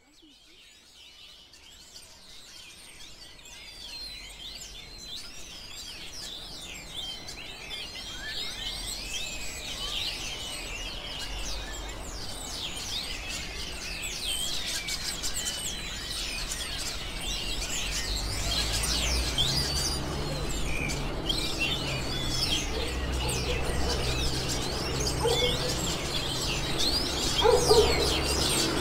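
Parakeets chattering in many quick, high, overlapping chirps, growing louder over the first several seconds. A low rumble joins in about halfway through.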